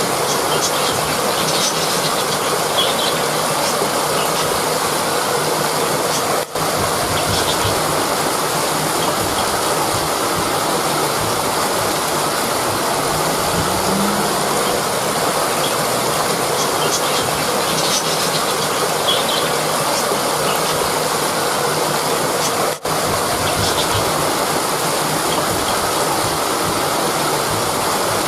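Rushing river: a steady, even rush of flowing water, dropping out for an instant twice.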